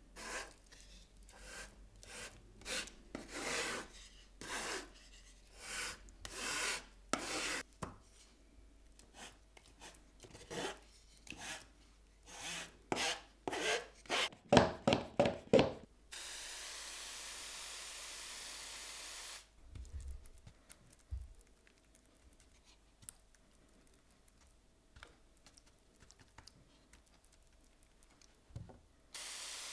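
Repeated rubbing strokes, at first one or two a second, speeding up into a quick flurry about halfway, then a steady spray hiss lasting about three seconds; faint light ticks follow, and a second spray hiss starts at the very end.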